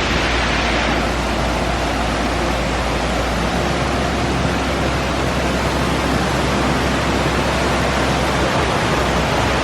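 Mountain valley stream flowing, a loud steady rush of water.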